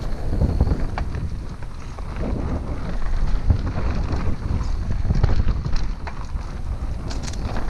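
Wind buffeting the microphone over the rumble of an Orbea Occam full-suspension mountain bike riding fast down a dirt trail, its tyres rolling over dirt and roots, with a few sharp clicks and knocks from the bike.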